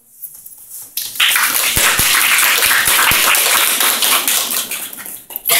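Audience applauding for about four and a half seconds, starting about a second in and stopping just before the end, with a few low thumps partway through.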